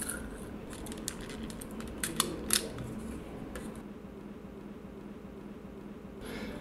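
Handling noise from an inhaler's used aluminium foil blister strip and small parts: foil crinkling and light clicks, with two sharp ticks a little after two seconds in. It goes quieter in the second half.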